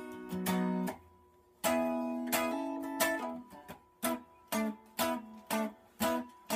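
ES-335 semi-hollow electric guitar playing chords: a couple of chords left to ring, then short, clipped chord stabs about twice a second, a repeated rhythm figure from a song being taught.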